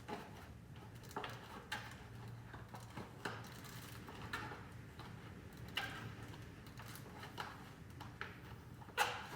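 A bicycle tubeless tire being worked onto its rim by hand: scattered light rubbing and clicking of the rubber bead against the rim and tape, with a louder handling noise about nine seconds in.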